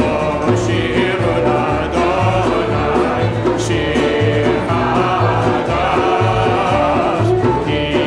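A congregation singing a Hebrew psalm song together in unison, with acoustic guitar and steady low bass notes keeping the rhythm.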